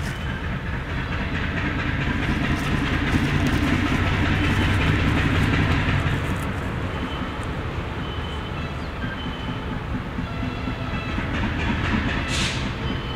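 GE B23-7 and EMD GP9 diesel locomotives of a short-line freight train approaching, engines running steadily with a low rumble that swells to its loudest a few seconds in, then eases a little. A brief hiss near the end.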